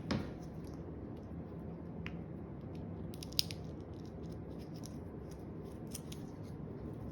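Light handling sounds of fitting peel-and-stick door silencers on a cabinet door: a few small clicks and ticks, one sharper click about three and a half seconds in, over a low steady hum.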